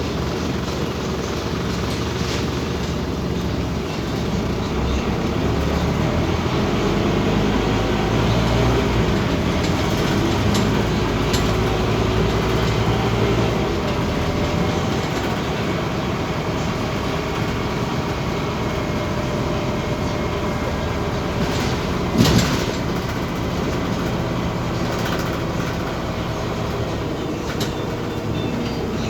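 Scania OmniCity city bus under way: engine running with road noise, its pitch rising slowly over the first several seconds, then holding steadier. A single sharp knock sounds about two-thirds of the way through.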